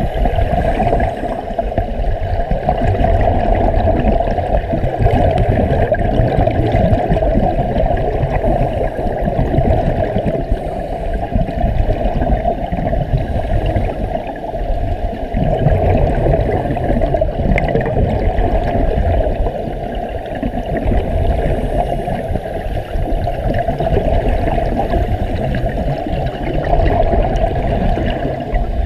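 Steady muffled underwater rushing and gurgling, picked up by a camera submerged in water.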